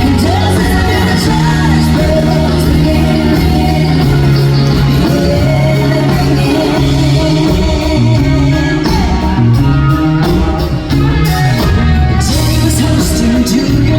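Loud live band music with singing: bass, drums and guitars playing a country-rock song with a steady beat.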